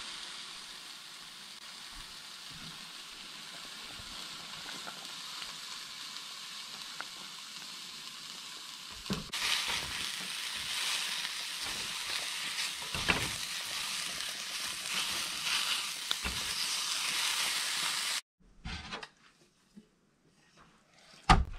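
Sliced jalapeño peppers sizzling in a frying pan, stirred with a silicone spatula. A steady hiss grows louder and crackly about nine seconds in, with a few knocks of the spatula. It cuts off abruptly near the end, followed by one sharp knock.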